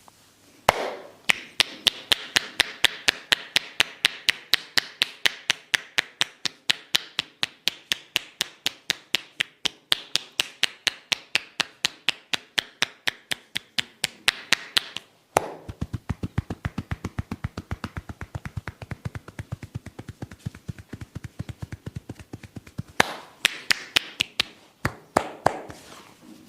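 Percussive hand massage: a barber's hands striking in a fast, even rhythm of about four or five taps a second. About halfway through it changes to duller, deeper pats, and near the end it goes back to sharper taps.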